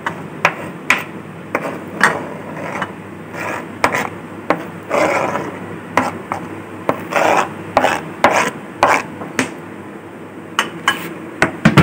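A utensil scraping chopped boiled potato off a cutting board into a bowl: a run of irregular short scrapes and taps, about two a second, with a few longer scrapes near the middle.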